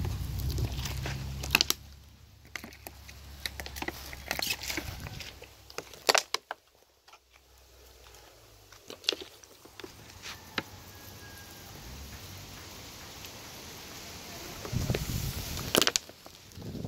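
Handling noise: scattered clicks, crackles and soft knocks from a plastic water bottle and a hand-held phone camera as the man walks over bare soil, after a low rumble in the first second or so.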